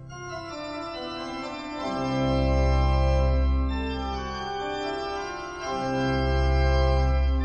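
Organ music playing slow, held chords, with deep bass notes swelling in twice, about two seconds in and again near six seconds.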